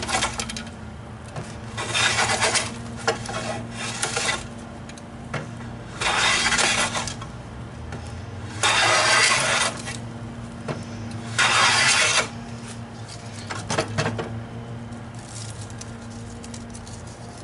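Stanley No. 7 jointer hand plane taking long strokes along a poplar board, each pass a hiss of the iron shearing off a shaving. There are about five passes a couple of seconds apart. The frog is set back to open the mouth, which had been clogging.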